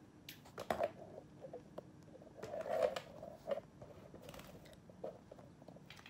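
Scattered clicks, short muffled knocks and rustling from the camera being handled and moved about.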